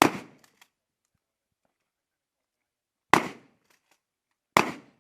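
Three gunshots from a Remington 870 pump-action shotgun, each a sharp bang that dies away within half a second: one right at the start, another about three seconds in and a third a second and a half later.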